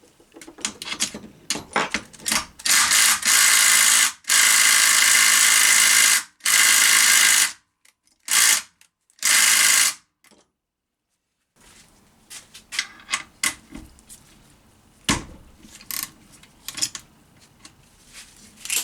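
Handheld power tool running in five bursts, from about half a second to two seconds long, undoing bolts on a gearbox casing. Light clicks and metal clinks of tools and parts come before the bursts and after a short dead silence.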